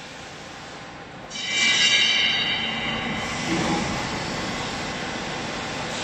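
A vertical hydraulic baling press lets out a loud, high-pitched squeal with several steady tones about a second in, lasting under two seconds. A lower mechanical sound follows, then steady machine noise.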